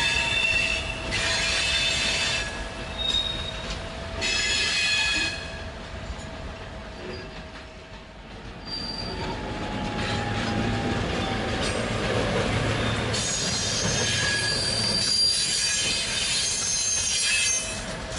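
Steel wheels of an ST44 diesel locomotive and open freight wagons squealing against the rails while shunting. The high screech comes in several bursts, with a low diesel engine rumble swelling about ten seconds in.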